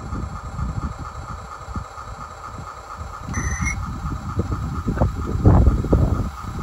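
Small garden-railway model diesel locomotive running slowly with its train of wagons, giving a steady whine. Low rumbling and knocking grows louder in the last second or two, and a short high chirp sounds about three and a half seconds in.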